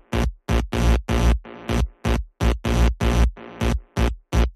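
Electronic music with a chopped, stuttering beat: short bursts with heavy bass, about two to three a second, with brief silent gaps between them.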